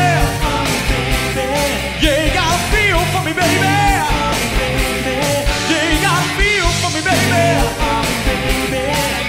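Live rock band playing an upbeat 80s pop-rock song: drums keeping a steady beat under bass, electric guitar and keyboards, with lines that glide up and down in pitch.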